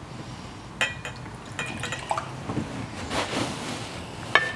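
Whisky poured from a small glass into a tasting glass, with glassware clinking several times. The loudest is a sharp glass clink with a brief ringing tone near the end.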